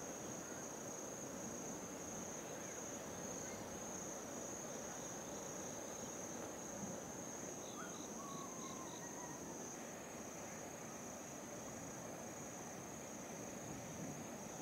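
Insects trilling: one steady, high-pitched, finely pulsing trill that does not stop, over a low outdoor hiss. About eight seconds in, four short high chirps sound in quick succession.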